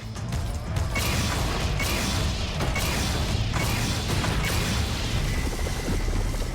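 Animated action-scene soundtrack: music over a continuous low rumble, with heavy thuds about once a second through the first half.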